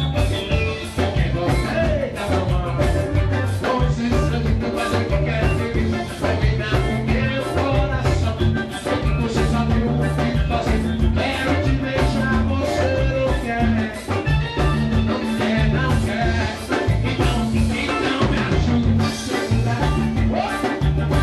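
Live band playing upbeat Latin-style dance music with a steady bass and drum beat and singing over it.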